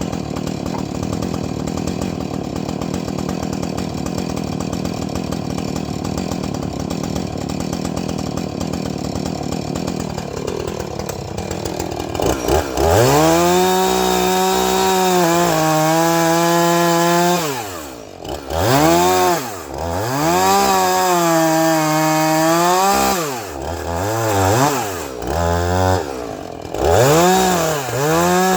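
A Husqvarna two-stroke chainsaw cutting firewood logs. For the first dozen seconds it runs steadily. From about halfway it is revved up to full speed and let back down again and again, its pitch rising, holding and falling several times.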